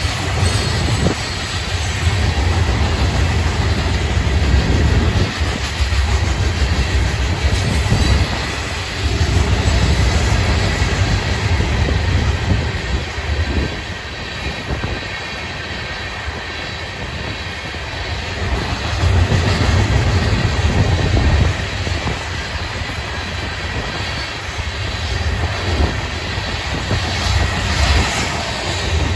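Florida East Coast Railway rock hopper cars rolling past close by: a steady rumble of steel wheels on the rails with occasional clacks. The sound swells and eases every few seconds as the cars go by.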